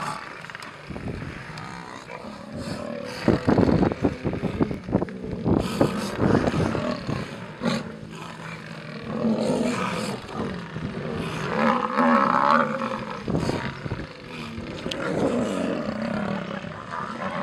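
Lionesses snarling and growling in repeated harsh bursts: defensive threat calls at a charging Cape buffalo.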